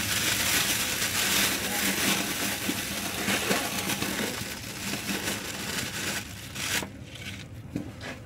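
Clear plastic bag crinkling as it is handled and tied off, fading out about seven seconds in.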